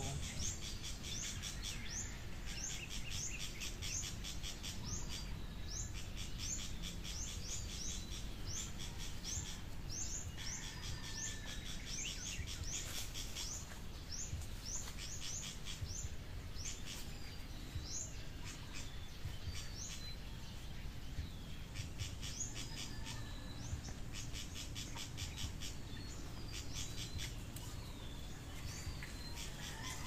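Birds chirping: a long run of short, high rising chirps, about three a second, thinning out after about twenty seconds, over a steady low background rumble.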